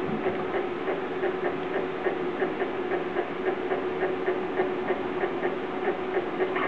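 Homemade Fellows-type gear shaper running: a steady motor hum with light ticking from its mechanism about five times a second.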